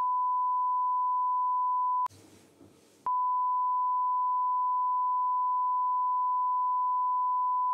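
Steady pure beep tone laid over the recording in place of the speech, the standard censor bleep. It breaks off about two seconds in for a second of faint room sound, then resumes.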